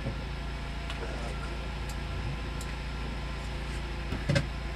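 Steady low mechanical hum inside the enclosed cabin of a Sno Bear ice-fishing vehicle, with a short voice sound near the end.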